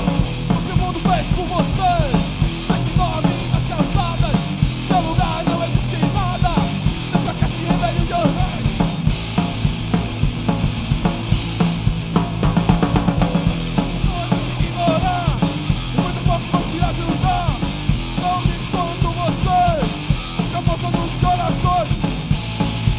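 Hardcore punk band playing live on stage: distorted electric guitar, bass guitar and a drum kit driving a steady, loud beat.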